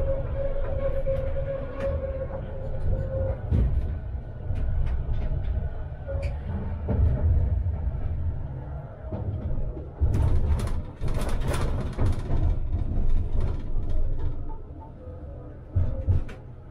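Tram running along the track: a steady low rumble with scattered clicks from the wheels and rails, and a steady motor whine that fades out about three seconds in. About ten seconds in comes a louder stretch of metallic screeching and clatter lasting a couple of seconds.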